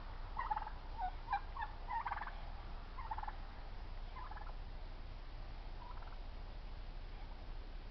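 Turkeys gobbling: a run of short rattling gobbles in the first half, fading out after about four seconds, with one faint call near six seconds.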